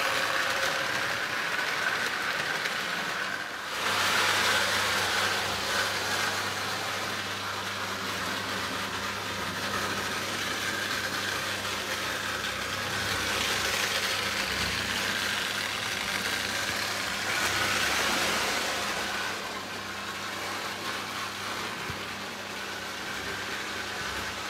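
Lionel O gauge Scout steam locomotive running on three-rail track: a steady electric motor hum under the rattle of its wheels on the metal rails, growing louder a few times.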